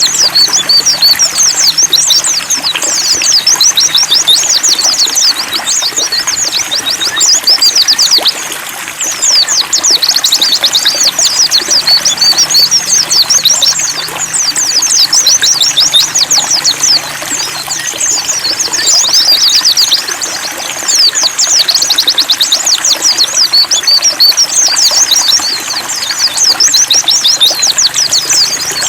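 White-eyes (pleci) singing a fast, high twittering song in long runs with short pauses, over the steady trickle of running water.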